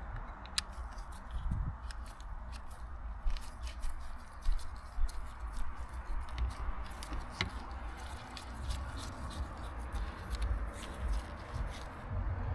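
Small parts being handled: scattered light clicks and taps, a few louder ones near the middle, over a low rumble.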